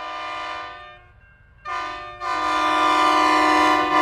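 Train air horn sounding several notes together in three blasts: one that ends about a second in, a short toot, then a long blast.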